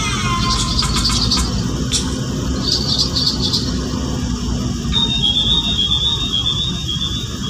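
Steady low rumble of a moving vehicle, heard from inside it, with a high, thin squeal wavering from about five seconds in.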